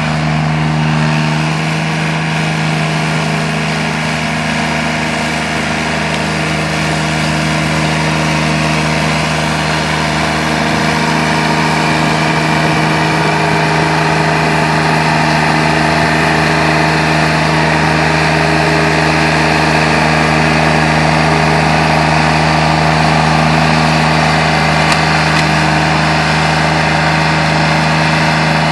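Engine of a remote-controlled tracked Traxx mower running at a steady pitch while the machine mows tall grass, with no change in speed.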